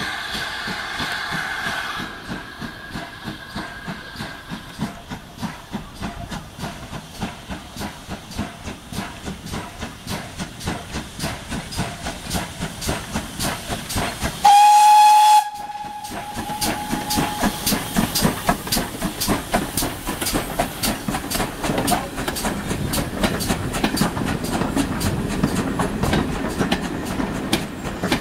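GWR 2-8-0 tank steam locomotive working a passenger train: a chord-like whistle that stops about two seconds in, then a steady beat of exhaust chuffs as it approaches. A loud whistle blast of about a second comes just past the middle, and near the end the coaches roll past with a rumble and wheel clicks over the rail joints.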